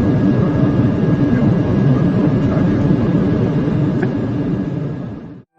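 Steady rushing cockpit noise of a Boeing 747-400 on the ground with its engines running. It fades away and cuts off in the last half second.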